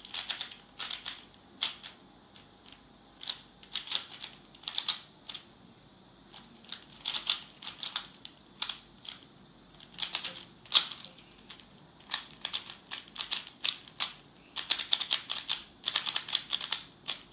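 Rubik's Cube being solved by hand: its plastic layers turned in quick flurries of clicks and clacks, with short pauses between runs of moves, ending with the final moves of the solve.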